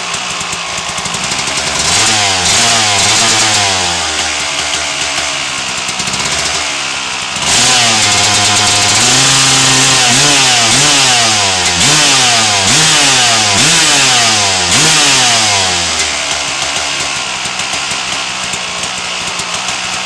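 1997 Suzuki RM250 single-cylinder two-stroke dirt bike engine idling, revved once about two seconds in, then blipped over and over with the throttle in quick rises and falls in pitch before settling back to idle near the end.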